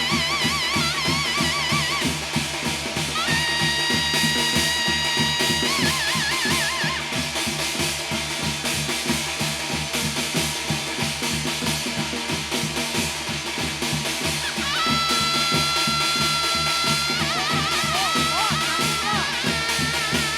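Korean shamanic gut ritual music: fast, dense drumming under a melody instrument whose pitch wavers, holding a long steady note a few seconds in and another about fifteen seconds in.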